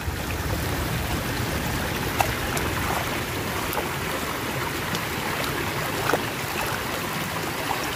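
Shallow stream water running steadily, with hands splashing in it and a few short splashes and knocks.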